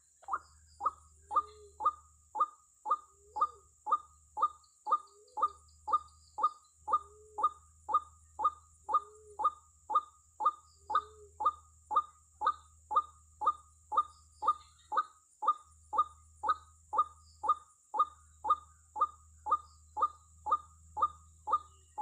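White-breasted waterhen calling: a sharp note repeated steadily about twice a second, with a lower note added every few seconds.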